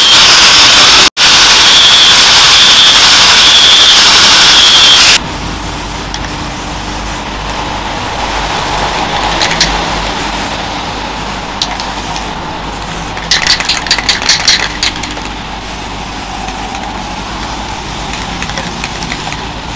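Small angle grinder with a thin cutting disc running at speed and grinding the steel guard of a knife, a steady hiss over a high whine; it cuts off suddenly about five seconds in. Later, near the middle, an aerosol spray can gives a run of short hissing bursts.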